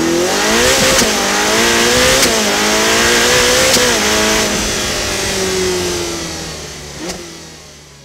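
Racing car engine accelerating hard through the gears. The pitch climbs and snaps down at each upshift, three times in the first four seconds, with a sharp crack at each shift. It then holds a lower note and fades away.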